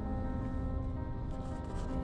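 Slow ambient background music with long held notes.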